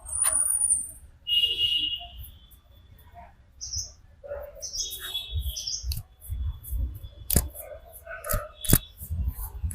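Small birds chirping in short high calls again and again, with low thumps in the second half and two sharp clicks about seven and a half and nine seconds in.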